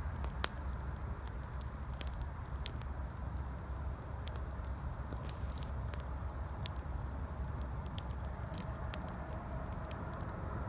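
Campfire crackling in irregular sharp pops over the steady low rumble of distant highway traffic.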